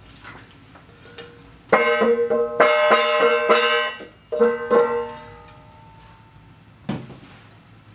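A short burst of plucked string music: a quick run of notes about two seconds in, a pause, then a few more that ring out and fade. A single soft knock follows near the end.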